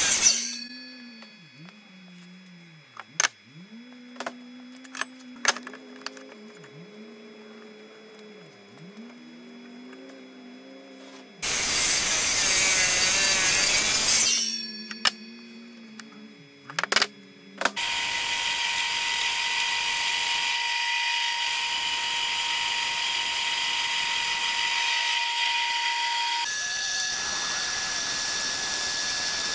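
A miter saw cutting through a thick aluminium bar, the cut ending just after the start; after a quieter stretch with a low hum and a few clicks, a second short miter-saw cut of about three seconds. From about two-thirds of the way through, a bandsaw runs steadily, cutting the aluminium.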